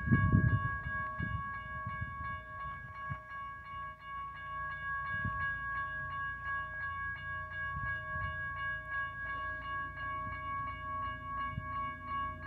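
Railroad grade-crossing bell ringing rapidly, about four strikes a second, as the crossing gates come down: the warning that a train is approaching. A low rumble sits underneath, loudest at the start.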